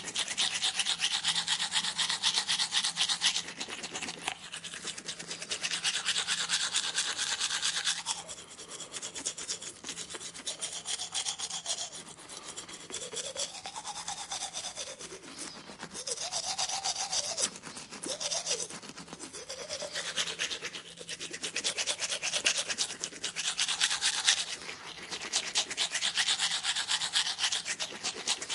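Rapid scratchy scrubbing, like teeth being brushed or cleaned, coming in bursts of a few seconds over a steady low hum. Through the middle, several short tones rise and fall in pitch.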